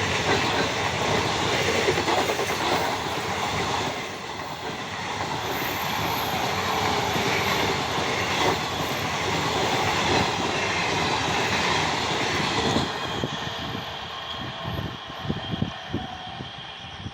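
Gour Express passenger train running past at close range: a continuous rumble and rattle of coaches and wheels on the rails, with clickety-clack. Near the end the noise falls away as the last coaches go by, leaving separate clacks of wheels over the rail joints.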